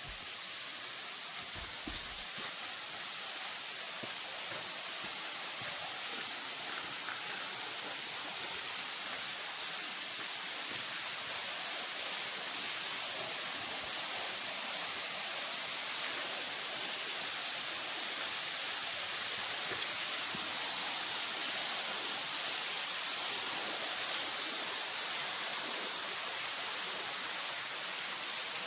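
Rushing water of a waterfall: a steady, even hiss that grows slowly louder.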